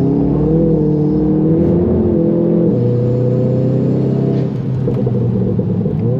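VW Golf 7 GTI's turbocharged 2.0-litre four-cylinder engine, heard from inside the cabin, pulling hard under acceleration with a gear change about two and a half seconds in. About four and a half seconds in the throttle comes off for the next corner and the engine note breaks up on the overrun, then rises again near the end.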